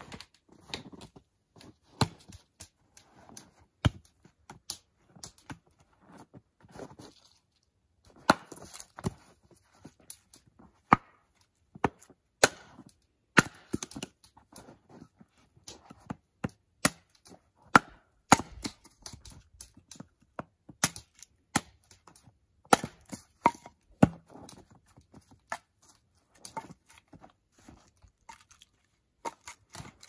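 Small axe splitting firewood into kindling on a chopping stump: a run of sharp wooden chops and cracks at uneven intervals, louder and more frequent after the first several seconds.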